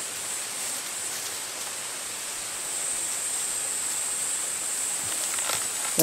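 Steady forest ambience: an even hiss with a constant high-pitched drone, ending in a brief knock of camera handling.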